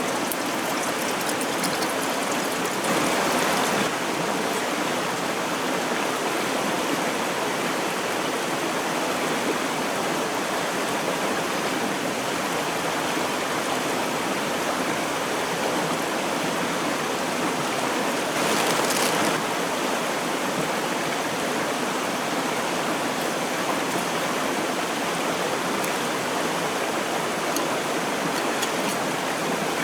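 Steady rush of a shallow river stream flowing over stones, swelling briefly about three seconds in and again near the middle, with faint scattered ticks over it.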